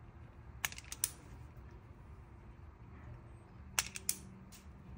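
Wire strippers clicking as the insulation is stripped off thin LED-strip wires: two short clusters of sharp clicks, about a second in and again near four seconds.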